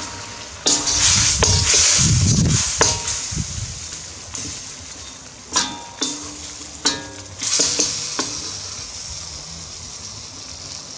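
Chicken stir fry sizzling in a round-bottom wok while metal spoons stir it, with about eight ringing clinks of metal on the wok. The sizzle is loudest in the first few seconds, then fades.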